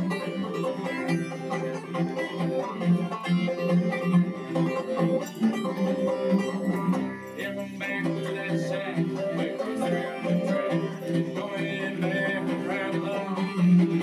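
Open-back banjo and cello playing a tune together, the banjo picked over the cello's rhythmic low line.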